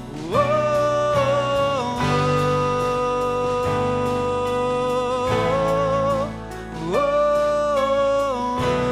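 Worship song music: a melody line with vibrato slides up into two long held notes over a steady accompaniment.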